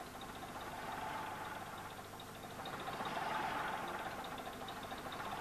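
A bus diesel engine idling steadily, heard beside the Hydracyclic gearbox during a third-gear engagement test with the solenoid plug backed off. The sound swells slightly about three seconds in.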